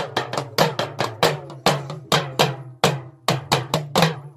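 Deru, a folk hourglass drum, struck in a fast even rhythm of about four to five beats a second over a steady low tone. The beating stops just before the end.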